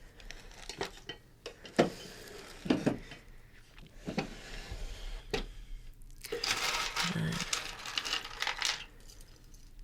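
Small hard objects clicking and rattling as a drawer of clips and fasteners is rummaged through by hand. Separate clicks come about once a second at first, then a denser run of clinking and rustling starts about six seconds in.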